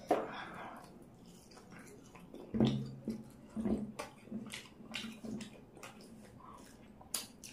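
Close-miked wet eating sounds: chewing and lip smacking, and fingers squishing through chicken curry and fried bara, with small scattered clicks.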